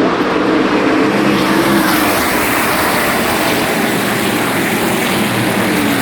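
NASCAR Truck Series race trucks' V8 engines running hard on track, a loud, continuous engine noise whose pitch drifts up and down as the trucks pass and change speed.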